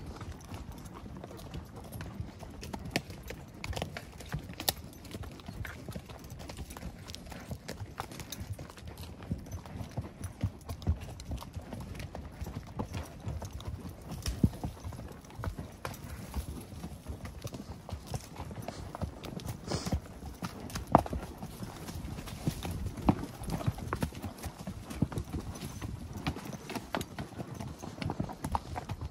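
Hooves of horses walking along a dirt trail: a steady, uneven run of clops and knocks.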